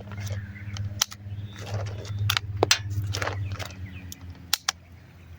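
Handling clicks and rattles of .68-calibre impact rounds being loaded for an Umarex T4e HDS 68 launcher, with a few sharp clicks, two of them close together near the end, over a steady low hum.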